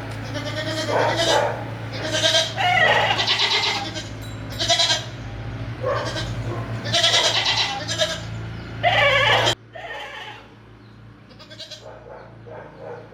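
Goats bleating, many calls one after another and overlapping. About two-thirds of the way in the sound drops suddenly, and fainter bleats continue.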